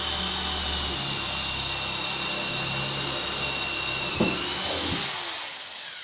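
PROMAKER PRO-TP550KIT 550 W hammer drill, in plain drill mode at full speed, boring a wood bit through a pine block. A steady high motor whine grows louder and rougher about four seconds in, then the motor winds down near the end as the bit is lifted out.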